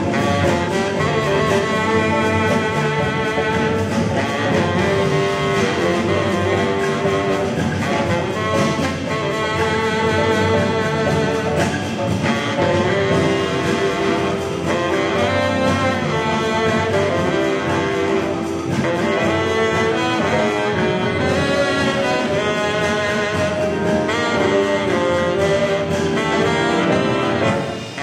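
Jazz big band playing, with a baritone saxophone leading over the horns and rhythm section.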